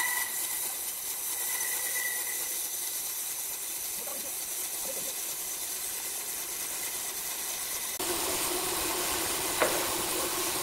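Horizontal band sawmill blade cutting through a large log, a steady hiss of sawing. About eight seconds in a low steady hum joins it, and there is one sharp click near the end.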